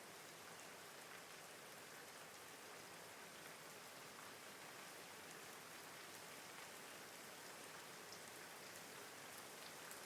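Faint, steady rain: an even hiss of falling rain with scattered soft drop ticks, and no thunder.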